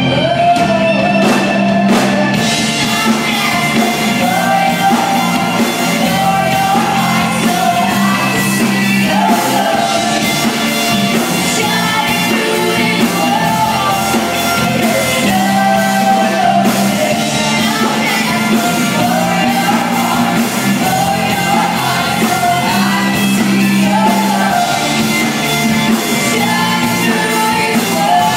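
Live rock band playing: a woman sings the lead melody over two electric guitars, bass guitar and a drum kit.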